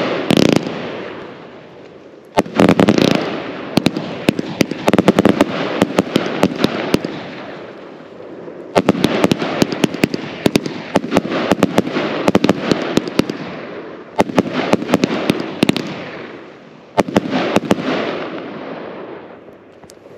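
Jekyll and Hyde 320-shot compound firework cake firing: waves of rapid sharp bangs as the shots launch and break, with short lulls between volleys. The last volley dies away near the end as the cake finishes.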